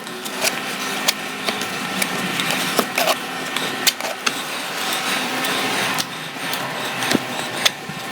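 A steady mechanical hum with irregular sharp clicks and taps over it, a few each second.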